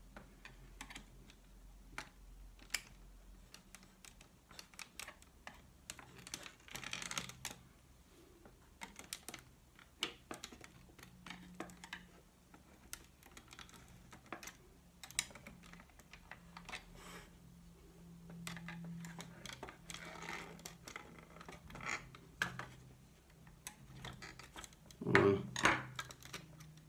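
Small plastic clicks, ticks and scrapes from a screwdriver tip prying at the clips of an Audi instrument cluster's plastic housing to free its LCD display, with a couple of louder handling knocks near the end.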